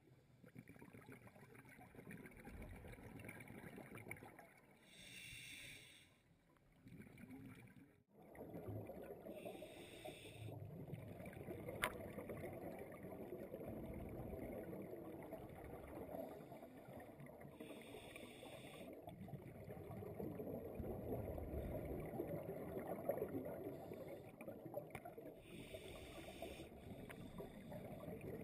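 Scuba regulator breathing heard underwater: a hiss on each of four inhalations, spaced several seconds apart, with a bubbling rumble of exhaled air between them. There is one sharp click about twelve seconds in.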